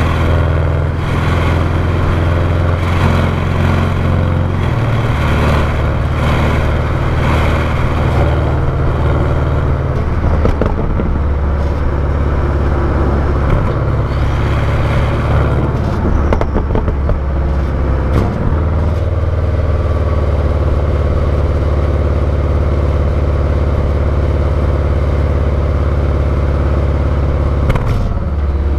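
Porsche 718 Cayman GTS's turbocharged flat-four running on its stock exhaust, heard close to the tailpipes. The low exhaust note shifts in pitch a few times in the first two-thirds, then holds steady.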